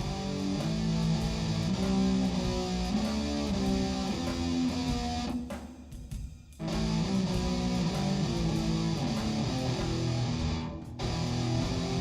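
Background music played on guitar, strummed and plucked, breaking off for about a second in the middle.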